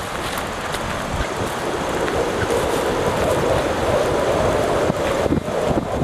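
Wind blowing across the camera's microphone: a steady rushing noise with low gusty rumbling, swelling in the middle.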